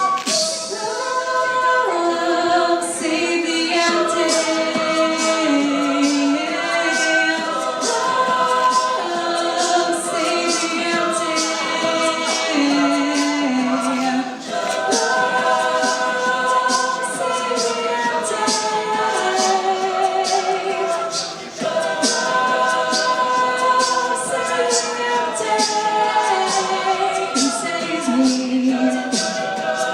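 Mixed a cappella group singing in several parts, with voices holding chords under a lead line and a beatboxed percussion beat of sharp snare-like hits at about two a second.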